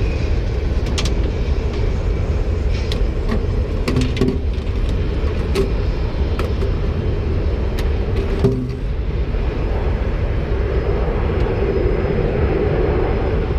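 Steady low mechanical rumble of running ramp equipment, with scattered light clicks and knocks from handling the hose fittings; a sharper knock comes about eight and a half seconds in.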